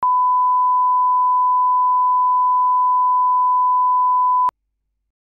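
A 1 kHz line-up test tone: one pure, steady, unwavering pitch, held for about four and a half seconds and cutting off suddenly.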